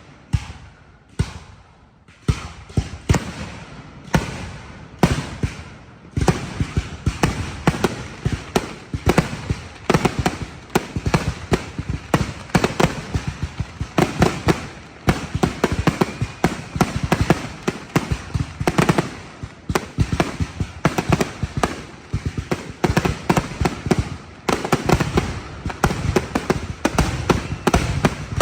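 Fireworks going off: a few separate loud bangs about a second apart at first, then from about six seconds in a dense, rapid barrage of overlapping bangs and cracks.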